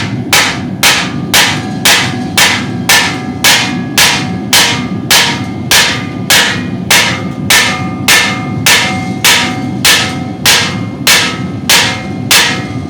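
Hammer blows on steel rivets being set in a forged steel piece, about two strikes a second in an even rhythm, each with a bright metallic ring, over a steady low rush. The rivets are sticking part of the way through the holes and are not seating properly.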